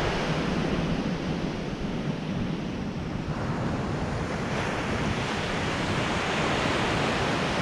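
Ocean surf breaking and washing up the beach, a steady rush that swells louder about three to four seconds in, with wind buffeting the microphone.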